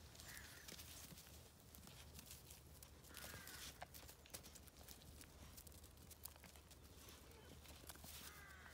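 Near silence, with faint scuffling and light clicks of a cat and two puppies tussling on a gravel path, and a faint bird call about three times.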